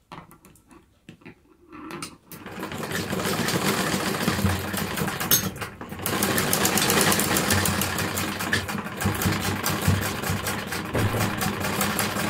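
Domestic sewing machine running, stitching a seam along the folded edge of knitted fabric: a few soft clicks, then about two seconds in a steady, fast, even stitching run that pauses briefly about six seconds in and then continues.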